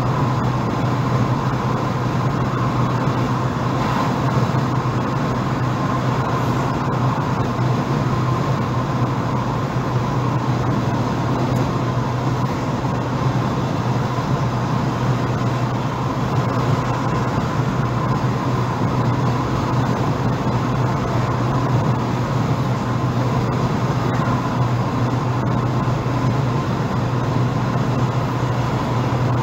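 Steady road noise of a moving car heard from inside the cabin: a constant low engine-and-road drone with tyres hissing on the wet road.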